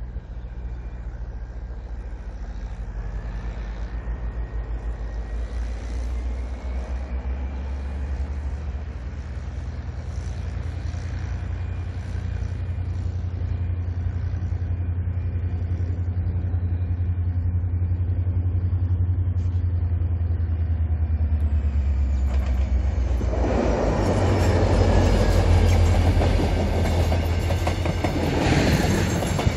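A diesel locomotive hauling a passenger train approaches with a steady deep diesel engine drone, slowly growing louder, mixed with a farm tractor's engine. About 23 seconds in the train passes close, and the loud rush and clatter of the passenger cars' wheels on the rails takes over.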